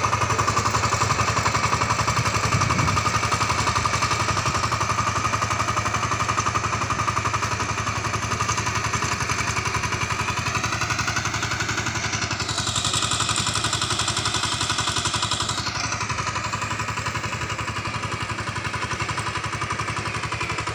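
VST Shakti 130 DI power tiller's single-cylinder diesel engine running steadily under load as it tills wet paddy mud. Its note shifts for a few seconds midway, and it grows slightly fainter near the end as the tiller moves away.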